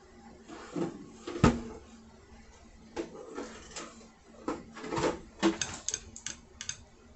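Knocks and clatter of a power pack being handled and moved, with one sharp thump about one and a half seconds in and a quick run of clicks near the end.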